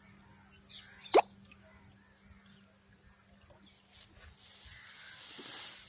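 A single sharp plop into water about a second in, then a soft hiss near the end.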